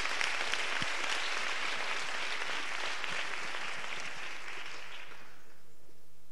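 Audience applause, a dense patter of many hands clapping that dies away about five seconds in.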